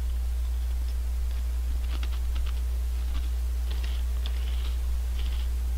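Crisp, irregular crackling crunches of Honey Tong Tong potato snack chips being chewed, over a steady low electrical hum.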